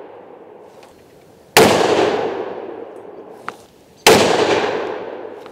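Two rifle shots about two and a half seconds apart, each a sharp crack followed by a long rolling echo that dies away over a second or more. A faint click comes between them.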